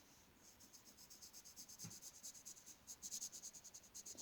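Faint, rapid back-and-forth colouring strokes on paper, a soft scratchy rhythm of several strokes a second, a little louder in the middle.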